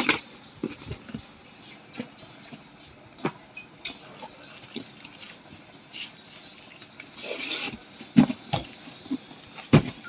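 Scattered clicks and knocks from handling the parts and packaging of a new mixer grinder, with a brief rustle about seven seconds in. The motor is not running.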